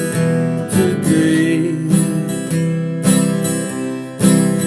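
Acoustic guitar strummed, with a voice singing the word "today" about a second and a half in.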